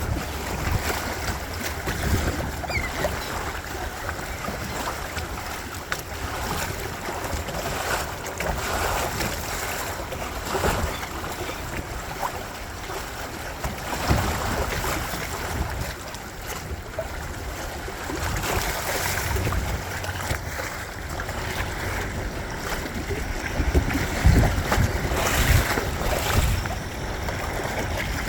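Water splashing and rushing along the hull of a small Windrider 17 sailing trimaran under way, with gusts of wind buffeting the microphone.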